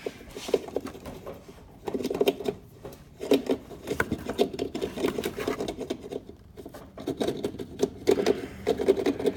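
Irregular bursts of scraping, rubbing and clicking as something is pushed and worked around among the parts of an ATV's chassis, with short pauses between the bursts.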